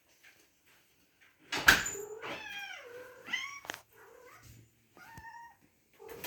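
A loud thump about a second and a half in, then a house cat meowing: two drawn-out calls that fall in pitch and a shorter one near the end, as it greets its owner coming home.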